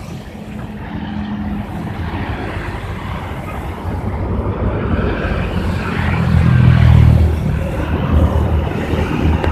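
A bus driving past: low engine rumble and road noise build to their loudest about six to seven seconds in, then ease off.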